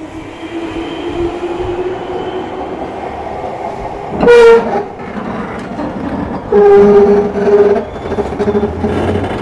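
A train arriving at a platform sounds its horn twice: a short blast rising in pitch about four seconds in, then a longer steady blast with a brief break about two seconds later. Under the horn runs the steady hum of the train, with a rising whine in the first couple of seconds.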